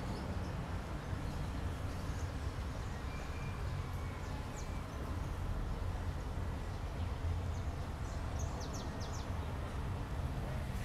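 Steady low background rumble with a few faint, short bird chirps, a single one near the middle and a quick run of several near the end.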